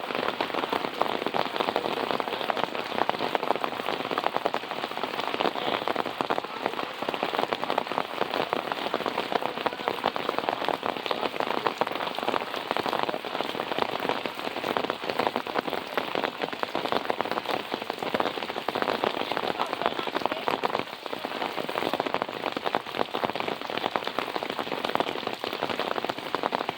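Steady rain falling and pattering on a surface, a dense, even patter of many fine drops with no let-up.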